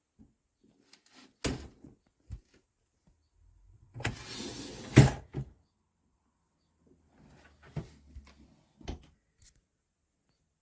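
Handling noises: scattered knocks and clicks, then a scraping, rustling stretch of about a second and a half that ends in a loud thump about five seconds in, followed by a few fainter knocks.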